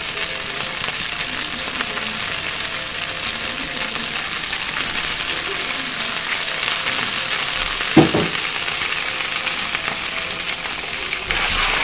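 Oil frying steadily in a nonstick frying pan with garlic and tomato paste in it, a constant hissing sizzle. A single sharp knock about eight seconds in.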